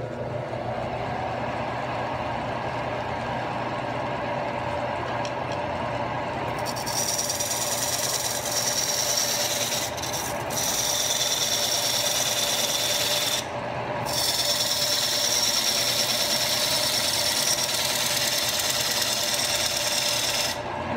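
Wood lathe running with a steady hum while a hand-held turning tool cuts the outside of a spinning spalted wood bowl. A higher cutting hiss starts about a third of the way in and drops out briefly twice.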